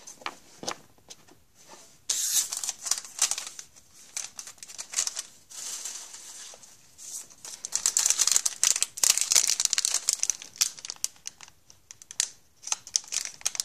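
Hockey trading card pack wrappers crinkling and being torn open as the packs are handled. The crackling comes in bursts, one starting about two seconds in and a longer, denser stretch from about eight seconds.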